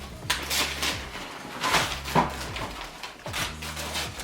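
Gift wrapping paper rustling and tearing in a series of short bursts as presents are unwrapped.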